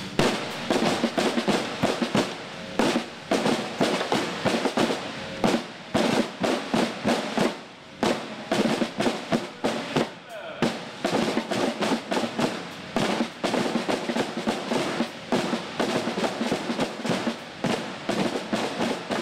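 Several snare drums and a bass drum struck with sticks by a group at once, a continuous run of quick strokes in a simple alternating right-left sticking pattern, with two brief breaks near the middle.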